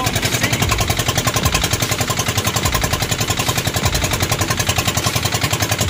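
Boat engine running steadily with a rapid, even knocking beat, about a dozen strokes a second.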